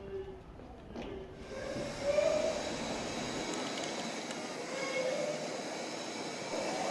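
A steady hiss that swells in about a second and a half in and then holds, with a few faint brief tones over it.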